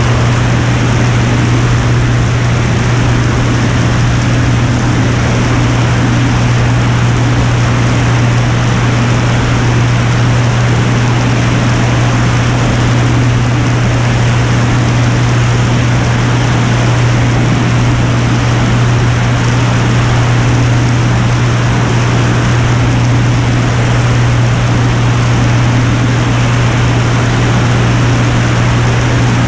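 Piper Turbo Saratoga in flight: its turbocharged six-cylinder engine and propeller make a steady, loud low drone over a constant rush of air noise.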